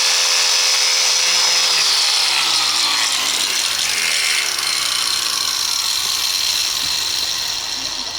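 Electric grinder running at speed, then switched off about two seconds in: its motor whine falls steadily in pitch as the wheel spins down.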